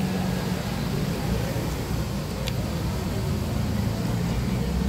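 Steady low rumble of road traffic, with faint indistinct voices in the background.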